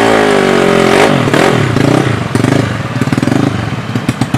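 Drag-racing motorcycle engine held at high revs, then the revs fall about a second in and it breaks into a rapid, uneven popping as the throttle closes.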